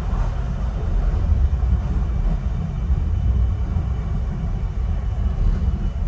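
Docklands Light Railway train running slowly along the track, heard from on board: a steady low rumble with a faint high whine above it.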